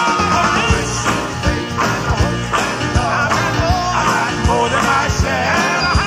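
A song with singing over a regular drum beat and band accompaniment.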